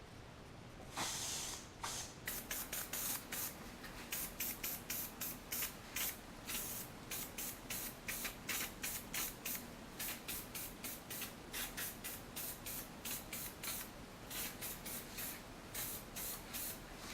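Aerosol can of sandable primer sprayed in short bursts of hiss, about two a second after a longer first burst, building up primer to fill nicks in a rubber door-trim molding.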